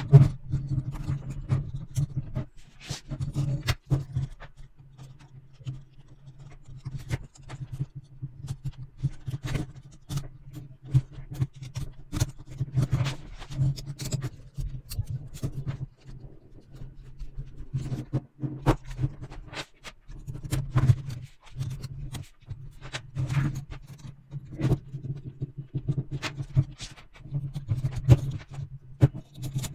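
Small metal parts, nuts and screws clicking and scraping against each other and against a small spanner and hex key while a metal construction-kit truck is bolted together. The clicks come irregularly throughout, over a steady low hum that swells and fades.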